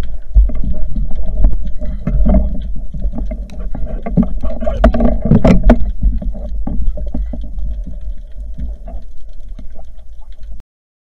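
Muffled underwater noise picked up through an action camera's waterproof housing: a heavy low rumble of moving water with scattered knocks and clicks, thickest about halfway through, as the diver handles the speared fish and speargun. It cuts off abruptly near the end.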